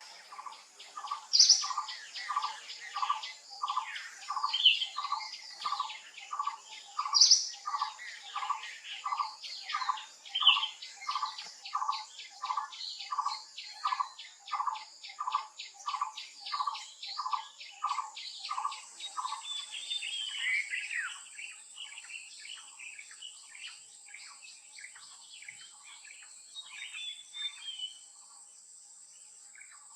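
Wild birds calling: one bird repeats a short low note about one and a half times a second, while others chirp higher above it. After about 19 seconds the repeated note stops, scattered twittering goes on, and a steady high-pitched insect drone sets in.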